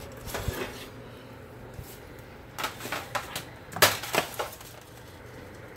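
Foil-lined metal baking sheet pulled from the oven rack and set down on the stovetop: a few light clicks near the start, then a cluster of sharper clanks and knocks, loudest about four seconds in.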